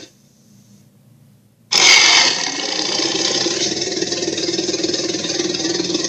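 Electronic sound effect from a dragon toy's speaker: a rough, noisy sound cuts off, and after about a second and a half of near silence another starts suddenly and runs on steadily.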